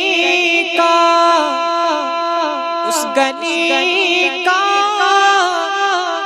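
A naat sung by a male voice, holding long drawn-out notes without words that step slowly up and down, over a steady held tone beneath.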